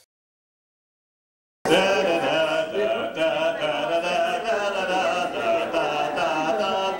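Dead silence for about a second and a half, then sound cuts in abruptly: a group of voices chanting together, many sustained voices overlapping.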